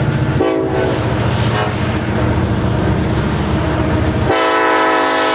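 Approaching diesel freight locomotive sounding its air horn for a grade crossing. A first blast starts about half a second in and lasts about a second and a half; a second, louder blast begins about four seconds in and is still sounding at the end. The locomotive's diesel engine rumbles steadily underneath.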